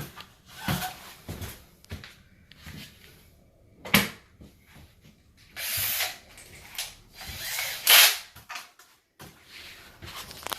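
Power drill running in two short bursts against a sheet-metal A/C register box, with sharp knocks and clicks between the bursts.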